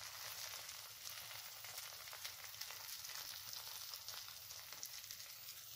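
Pancake batter sizzling in butter in a frying pan: a quiet, steady hiss with fine crackles.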